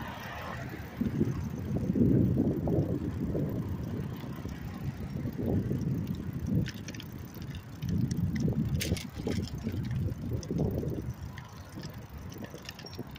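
Bicycle ride heard on the rider's microphone: an uneven, gusty low rumble of wind and road noise, with a few sharp clicks and rattles about midway.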